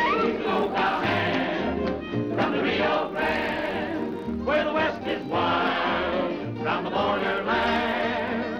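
1930s swing band music with a trumpet lead and ensemble voices over a steady bass beat of about two a second.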